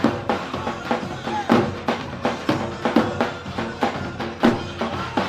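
Live wedding dance music led by a large tabl (bass drum) beating a steady rhythm of about two strokes a second, with heavier accents, under a sustained melody line.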